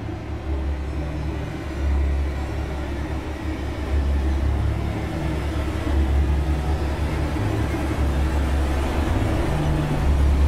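Low rumbling drone of a cinematic score or sound design, with a deep bass pulse swelling about every two seconds and the whole slowly growing louder.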